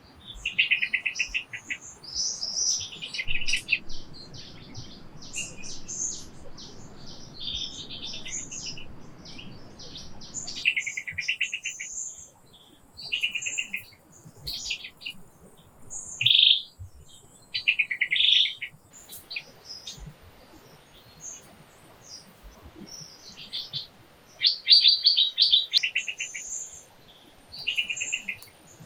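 Birds chirping and calling: many short, quick high-pitched calls in clusters, with brief pauses between them.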